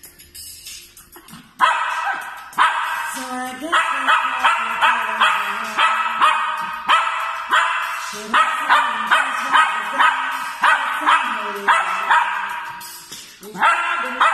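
Small white curly-coated dog howling in a run of short, pitched, yipping notes, about two or three a second, with music underneath. It starts about a second and a half in, pauses briefly near the end, then starts again.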